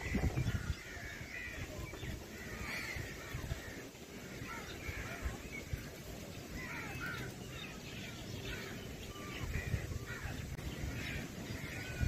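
House crows calling repeatedly in short calls. A low rumbling noise sits under the calls, loudest at the start and again near the end.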